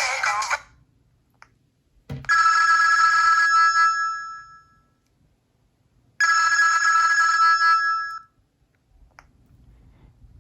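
Sony Ericsson W950i ringtone: a ring of several steady high tones sounding twice, about four seconds apart, each lasting about two seconds and fading out. The tail of a previous melodic ringtone stops about half a second in.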